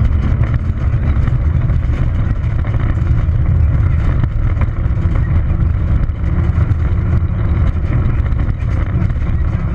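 Peugeot 206 XS rally car's engine running hard, heard from inside the cabin as a loud, steady drone, mixed with the noise of the tyres on the gravel road.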